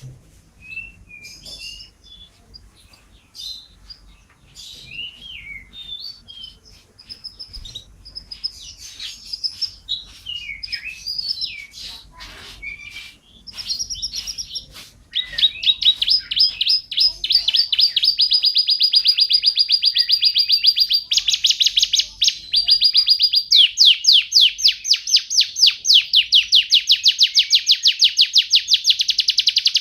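Domestic canary singing: varied short chirps and whistled notes, then from about halfway a loud, fast rolling trill that runs on, shifting pitch a few times.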